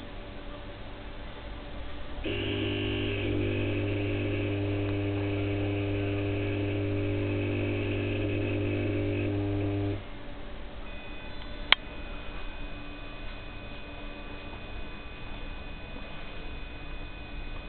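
Philips SON-H 210 W high-pressure sodium lamp and its lantern's ballast humming at mains frequency while the lamp draws current. The hum cuts off suddenly after about eight seconds and is followed by a sharp click: the retrofit lamp dropping out and cycling during warm-up on a hard start.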